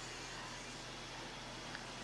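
Low, steady hiss with a faint low hum: the background noise of a sermon recording during a pause in the speech.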